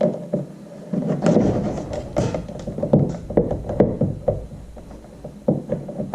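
Irregular knocks, clicks and scraping as a sensor cable and its connector are worked through a freshly drilled hole in a plastic kayak hull. The fit is too tight.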